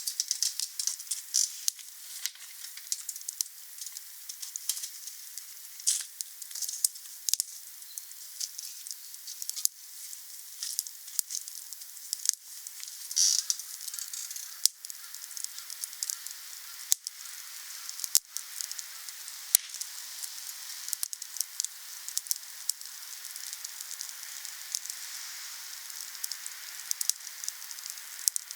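Wood bonfire crackling: a steady hiss with frequent sharp snaps and pops, and a brief hissing flare about halfway through.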